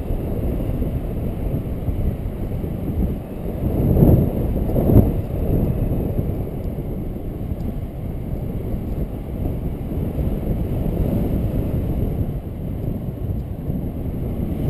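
Wind rushing over a paraglider pilot's camera microphone in flight: a steady low rumble, with two stronger gusts about four and five seconds in.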